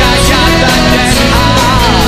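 Live rock band playing at full volume, electric guitar and band under a sung vocal line that wavers and bends in pitch near the end.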